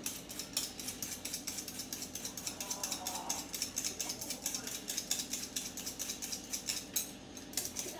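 Hand vegetable peeler scraping the skin off a raw potato in quick, even strokes, about four or five a second.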